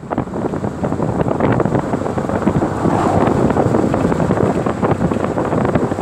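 Wind rushing and buffeting the microphone in the open bed of a moving pickup truck, a dense, unsteady rumble with no pauses.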